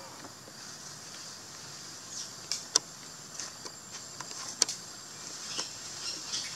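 Steady high insect chorus in the trees, with a few sharp clicks and snaps; the two loudest come near the middle.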